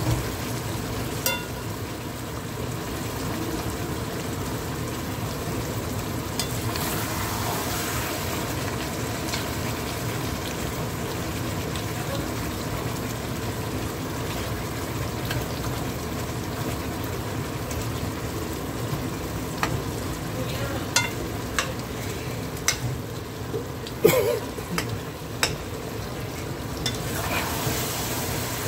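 Mango talkari sizzling and bubbling in a pot on high heat as its cooking water cooks off, while a metal spoon stirs and mashes the mango pieces. The spoon makes scattered sharp knocks against the pot, the loudest about three-quarters of the way in.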